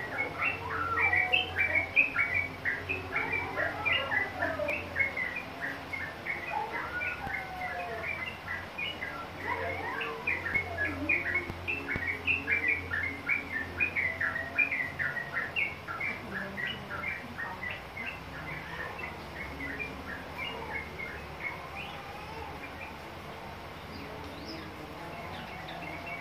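Yellow-vented bulbul (trucukan) song: a fast, continuous run of chattering chirps mixed with lower sliding whistles, busiest in the first half and thinning out after about sixteen seconds. It is the young caged bird answering a lure recording of the same species.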